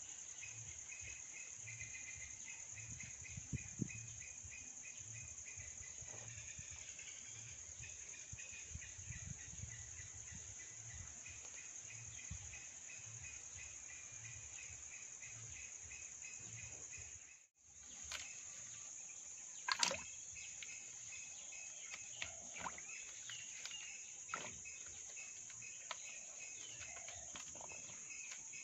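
Outdoor insect ambience: a steady high-pitched insect drone with rapid trains of chirping. The sound cuts out briefly a little past halfway, and a few sharp clicks and taps follow.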